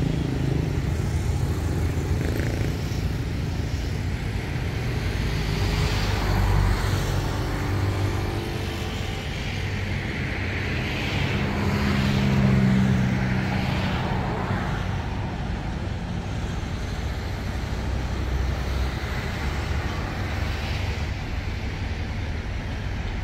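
Train running past: a steady low rumble with a hum that swells a little past the middle.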